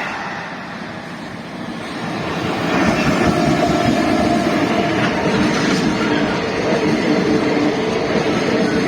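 Freight train passing close by, with a steady rumble and clatter of wheels on rail that builds about two seconds in and then stays loud.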